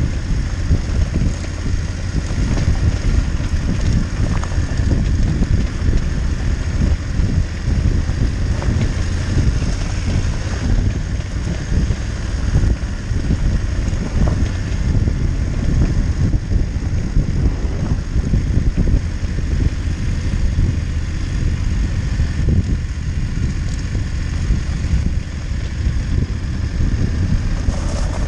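Motorcycle riding along a gravel track, heard mostly as a steady, low rumble of wind buffeting on the microphone, with engine and tyre noise underneath.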